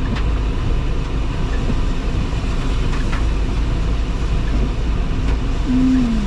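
Inside a vehicle driving through heavy rain: a steady engine and road rumble under the hiss of rain on the windshield, with the windshield wipers sweeping. Near the end comes a short tone that falls in pitch.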